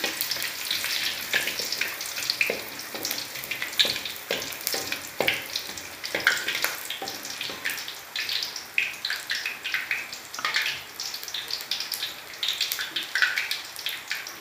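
Aromatics and whole spices sizzling in hot oil in an aluminium wok, with irregular pops. A wooden spatula stirs and scrapes against the pan.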